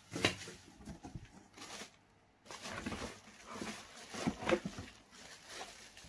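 Plastic packaging bags crinkling and cardboard rustling in irregular bursts as vacuum cleaner parts are lifted out of their box, with a short lull about two seconds in.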